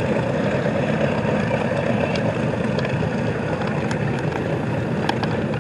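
The four 18-cylinder Wright R-3350 radial engines of the B-29 Superfortress "Doc" running steadily as the bomber moves along the runway, a dense, even rumble.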